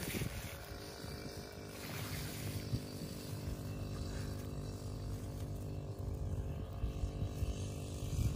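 An engine running steadily at a constant speed, a low drone that does not change.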